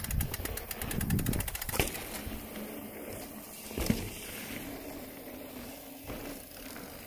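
Fast, even ticking of a bicycle's freewheel hub while the bike coasts, for about two seconds, then quieter rolling noise with a single knock about four seconds in.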